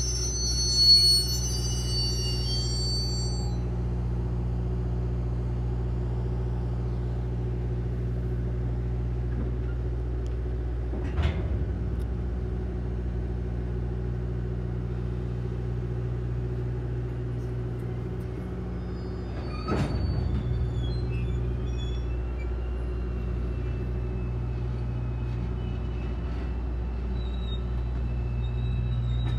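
Freight train moving slowly, with the steady low hum of a diesel locomotive engine under the rolling of covered hopper cars. High wheel squeal in the first few seconds, and two sharp knocks, one about 11 seconds in and one about 20 seconds in.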